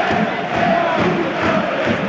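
Football supporters in a stadium end singing a chant together: a held, sung melody carried over a dense mass of voices.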